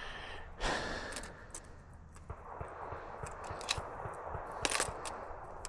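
Scattered small clicks and a brief rustle about half a second in, from handling a revolver and its ammunition between shooting strings; no shots are fired.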